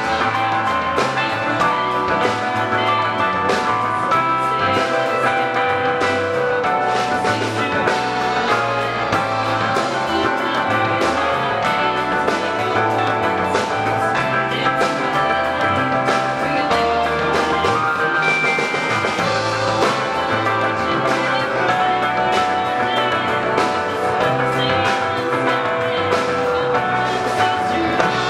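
Live rock band playing: electric guitars, bass and keyboard holding notes over a steady drum-kit beat.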